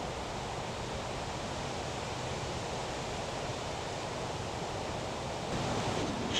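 Wind rushing steadily through trees and leaves, picking up a little near the end.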